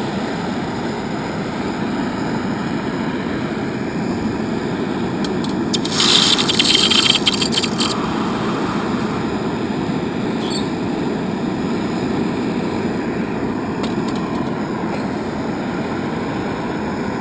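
Metal-melting furnace running with a steady rushing noise, and a brief louder hiss about six seconds in that lasts around two seconds.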